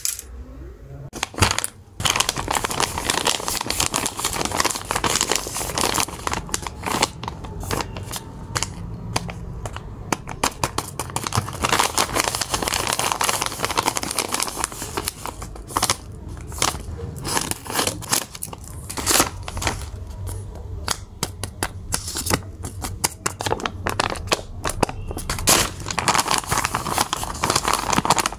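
Paper crinkling and rustling as a handmade paper blind bag is handled: a dense, irregular run of crackles that starts about two seconds in.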